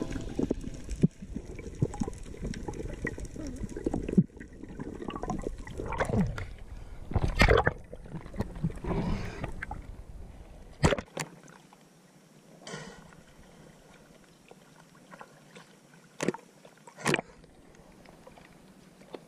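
Water noise on a freediver's camera: a loud low rumble of moving water with gurgling and a few knocks, dropping to a quieter wash about eleven seconds in, broken by a few sharp clicks.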